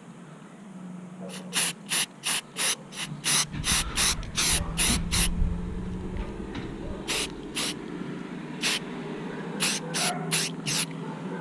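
Aerosol spray-paint can laying on a white base coat for hydro dipping. It fires in quick short bursts, about a dozen in a row starting a little over a second in, then a few more spaced out after a pause.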